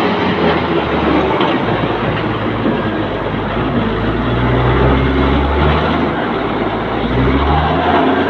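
Komatsu WA350 wheel loader's diesel engine running loud as the loader manoeuvres, its deep note rising and falling with the throttle.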